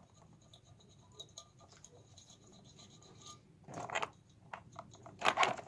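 A thin wire scraping and clicking inside a steam cleaner's steam outlet tube as it is worked in and out to break up the limescale clogging it. Faint scratches and ticks at first, then two louder rasping bursts in the second half.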